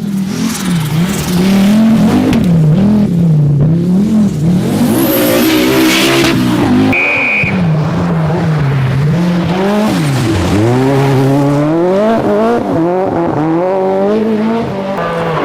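Group B rally car engine driven hard, its pitch climbing and dropping again and again as it revs through the gears and lifts off. About ten seconds in the revs fall away sharply, then climb steadily again.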